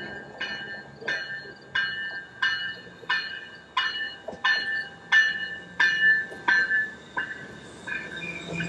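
A railroad warning bell ringing in a steady rhythm, about three strikes every two seconds, fading out near the end, over the low rumble of a train.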